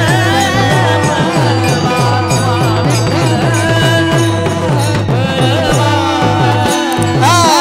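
Marathi Warkari abhang music between sung lines: a drum keeps a steady, quick rhythm under a held drone and a bending melody line.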